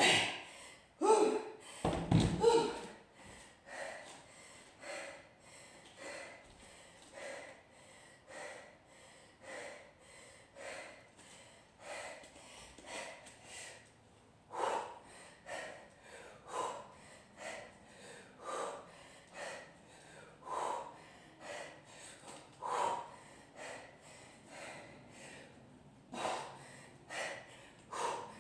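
Heavy, rhythmic breathing of a woman doing repeated kettlebell snatches with a 16 kg kettlebell: short, sharp breaths in and out, with stronger exhales about every two seconds in the second half. A loud thump about two seconds in.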